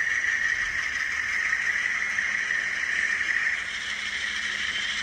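Diesel engine sound of a model GE AC4400CW locomotive, played through its small onboard speaker and running steadily as the locomotive moves slowly.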